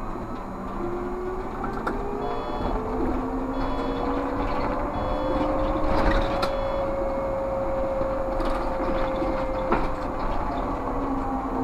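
Škoda 30Tr trolleybus's electric traction drive whining, rising in pitch as it accelerates, holding steady, then dropping near the end as it eases off, over road rumble. A short high beep repeats about every second and a half in between.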